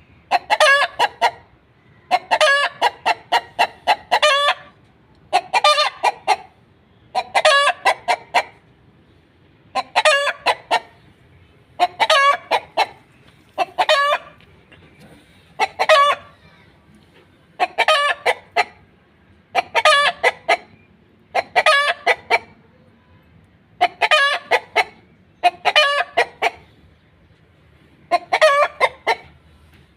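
A chicken clucking in short bursts of several quick clucks, a burst about every two seconds.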